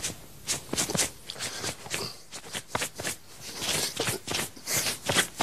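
Irregular rustling and soft knocks of clothing and couch upholstery as a person squirms and rubs his arms and chest.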